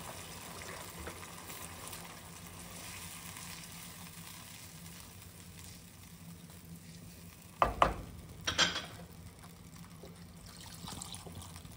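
Roux, vegetable and tomato mixture for étouffée sizzling steadily in a deep saucepan over raised heat, with stirring. Two sharp knocks, under a second apart, about eight seconds in.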